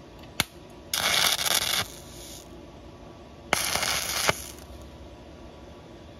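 Stick-welding arc crackling in two short bursts of under a second each, about two and a half seconds apart, as caps are tacked onto steel; a sharp click comes just before the first burst.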